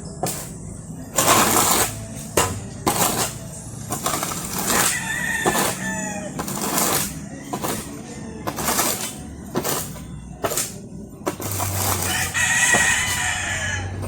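A rooster crows, once about four seconds in and again in a longer crow near the end, over repeated scrapes and knocks of a shovel working the pen floor.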